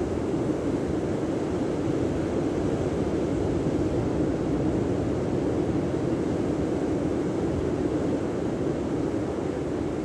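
Steady rushing noise of sea surf breaking on a sandy beach, with wind on the microphone, unbroken and even throughout.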